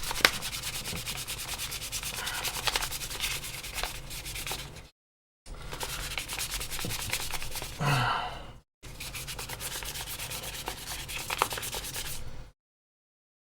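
Sandpaper rubbed quickly back and forth over the plastic of an AirPods Pro charging case, in three spells of rapid strokes with short pauses between them.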